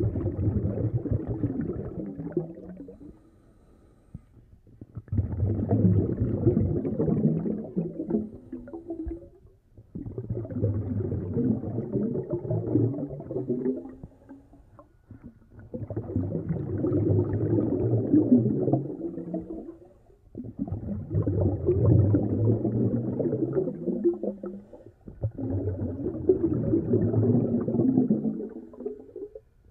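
Scuba diver breathing through a regulator: six long bubbling exhalations, one about every five seconds, with short breaks between them.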